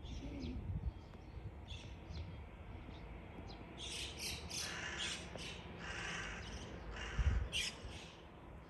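Crows cawing repeatedly, with a run of calls in quick succession from about four seconds in. A low thump on the microphone about seven seconds in.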